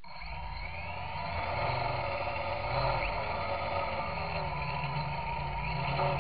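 Electrohub Spider X quadcopter's budget brushless motors and propellers spooling up as it lifts off, a rising whine over the first second or so that then settles into a steady multi-tone buzz, heard from a camera on the frame. The motors are noisy, which the owner says really sounds like bad bearings.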